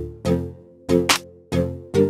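Background music with a steady beat: regular drum hits, a sharp snare-like stroke among them, over short pitched notes.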